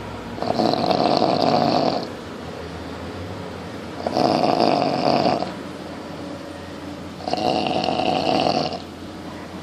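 Snoring: three long snores, each about a second and a half, coming about every three and a half seconds.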